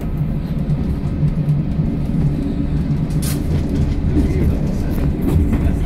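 1960 Class 115 diesel-mechanical multiple unit running along the line, heard from the driver's cab: a steady low engine drone with wheel-on-rail noise, and a sharp click about three seconds in and another near five seconds.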